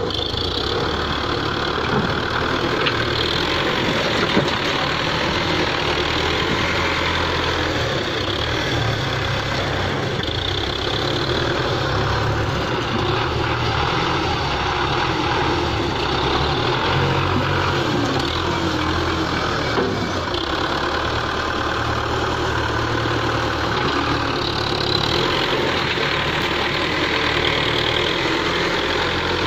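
Belarus 510 tractor's diesel engine running steadily as the tractor drives and works its front loader bucket.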